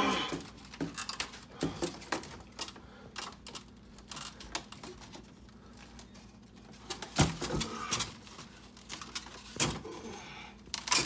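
Scattered clicks, taps and rattles of plastic parts and wiring being handled as a freezer's defrost thermostat wire harness is worked loose from its cover, with a few louder knocks about seven and nine and a half seconds in.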